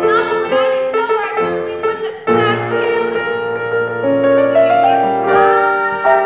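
A woman singing a musical-theatre song with piano accompaniment: sustained piano chords under her held notes, with a short rising run of piano notes a little past the middle.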